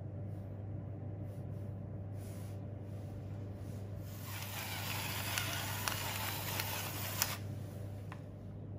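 Pepper mill grinding black pepper for about three seconds, starting about four seconds in: a dry grinding noise with a few sharp clicks, which stops suddenly. A steady low hum runs underneath throughout.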